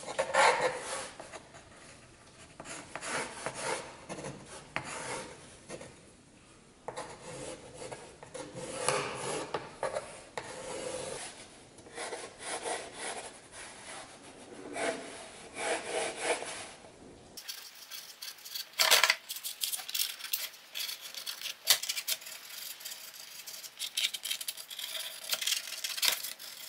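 Pencil scratching across plywood in runs of short strokes with pauses between, sketching an outline on the board; a few sharper ticks come just after the midpoint.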